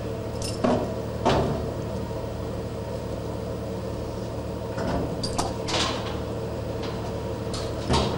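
Steady low hum of a ship's engines and machinery, with several short knocks and clatters on top, two about a second in, a few more around the middle and one near the end.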